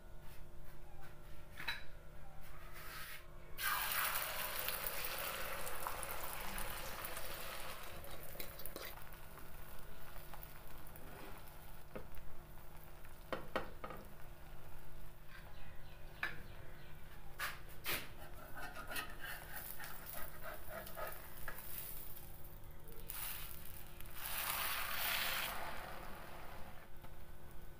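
Beaten egg sizzling on a hot oiled tawa as an omelette fries, with a strong burst of sizzling about four seconds in and another near the end. A metal spatula clicks and scrapes on the griddle in between.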